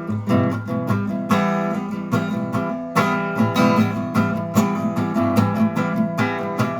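Instrumental break of a country-style song: acoustic guitar strumming chords in a steady rhythm.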